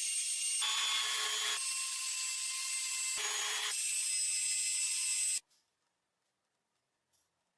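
High-speed power tool running with a high whine. Twice it bites into the metal work and a lower rasping grind comes in briefly, then the sound cuts off suddenly a little after five seconds in.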